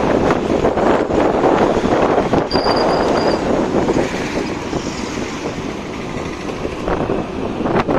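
Motorcycle on the move: steady rushing wind and road noise with the engine running underneath, easing off a little after the middle.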